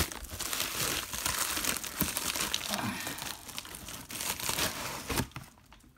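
Plastic bubble mailer crinkling and rustling as it is handled and pulled open; the crinkling stops suddenly about five seconds in.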